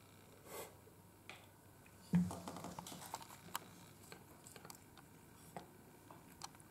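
A cat licking and nosing at an empty food bowl: small wet clicks and ticks of tongue on the bowl, with a knock about two seconds in followed by a quick run of clicks.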